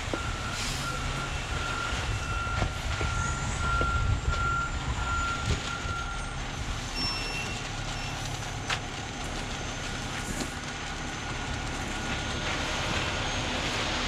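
Concrete mixer truck running, its diesel engine a steady low rumble as it discharges down the chute. A reversing alarm beeps repeatedly for about the first six seconds. Rakes and shovels scrape and knock in the wet concrete now and then.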